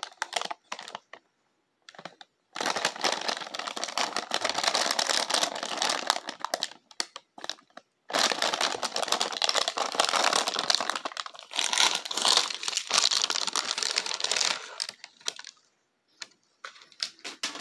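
Crinkly plastic wrapper of a roasted seaweed snack pack being handled and pulled open at its seal: two long spells of dense crinkling, each a few seconds, with only a few light rustles at the start and near the end.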